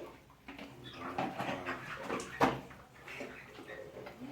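Chickens calling in short, scattered notes, with one sharp knock about two and a half seconds in.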